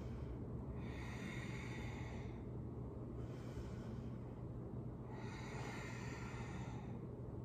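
A person breathing in and out during an exercise flow: about four soft, hissy breaths, one roughly every two seconds, over a faint low steady hum.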